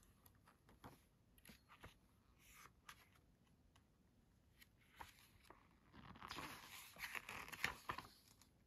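Paper booklet pages being leafed through: faint soft rustles and small ticks, then a longer rustle as a page is turned about six seconds in.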